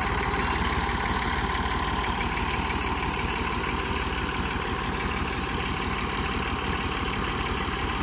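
Massey Ferguson diesel tractor engines idling steadily.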